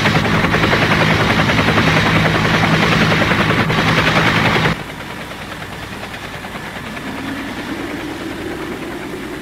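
Helicopter rotor chopping loudly and steadily, cutting off suddenly about five seconds in. A quieter low hum follows.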